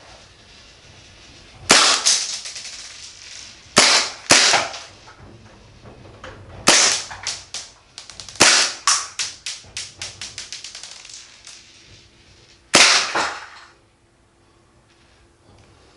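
Marzen Walther PPK gas airsoft pistol fired six times at irregular intervals, a sharp pop each time followed by a quick run of fading clicks.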